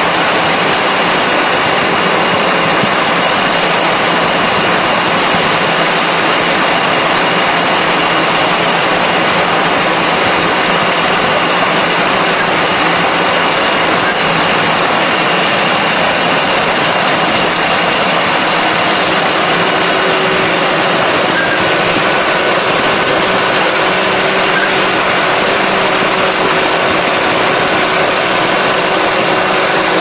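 A vehicle engine running steadily and loudly, a constant even noise with faint steady tones and no change in speed or level.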